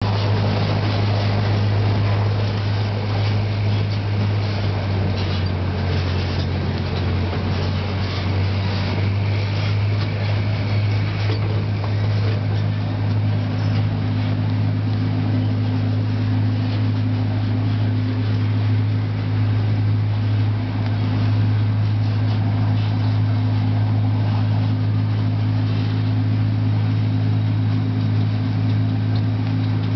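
Zoo passenger train running along its track, heard from an open-sided passenger car: a steady low engine hum over the rolling noise of the cars.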